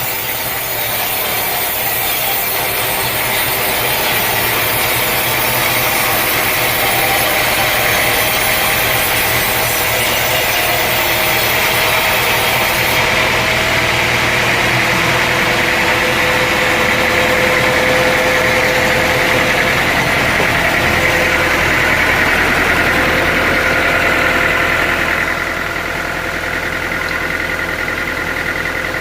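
Sawmill running: an engine going steadily while a saw cuts through a log. The high hiss of the cut thins out about halfway through, and the sound gets a little quieter near the end.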